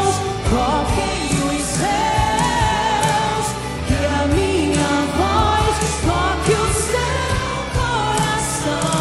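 A woman singing a gospel praise song into a handheld microphone, holding long notes that bend and waver, over an accompaniment of steady bass and regular drum hits.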